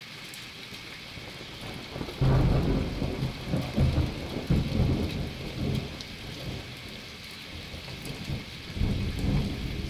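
Rain-and-thunder sound effect: a steady hiss of falling rain, with a sudden low rumble of thunder about two seconds in that rolls on for several seconds, and a second, shorter rumble near the end.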